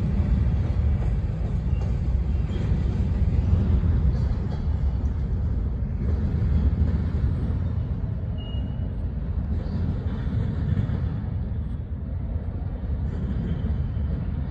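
Freight train of covered hopper cars rolling past on the rails: a steady low rumble that slowly fades as the cars move away, with a brief high squeal about eight seconds in.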